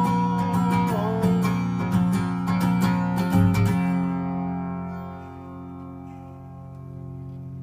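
Acoustic guitar strummed through its closing chords. The strumming stops about four seconds in, and the last chord rings on and slowly fades.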